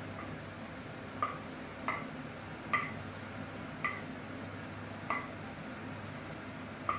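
Wooden spatula knocking against a ceramic plate while scraping diced aubergine off it into a frying pan: six short clinks with a brief ring, roughly one a second, over a steady low hum.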